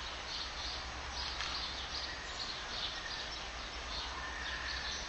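Outdoor background noise: a steady hiss with faint, high chirps repeating about twice a second, likely birds.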